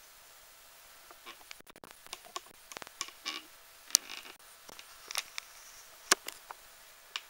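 Camera handling noise: irregular clicks, knocks and rustles, with two sharp clicks about four and six seconds in, over a low room hiss.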